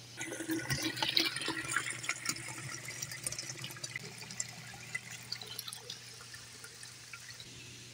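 Water running and splashing, with scattered small clicks and knocks in the first few seconds, settling into a fainter steady rush: a small fish pond draining through its opened drain valve.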